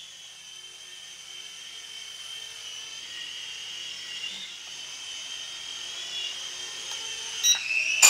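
A small SYMA S52H toy RC helicopter's electric motors and rotors whine steadily at a high pitch in flight, the pitch wavering slightly as it is steered. Near the end the whine dips and there are a few sharp knocks as it comes down onto the table.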